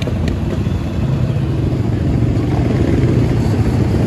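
Engines rumbling close by as a lifted pickup truck drives past and sport quads run nearby, a steady low rumble that grows a little louder toward the end.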